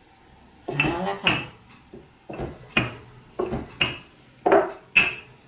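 Wooden rolling pin pushed back and forth over dough on a wooden chopping board: a string of about eight short rolling knocks at uneven intervals.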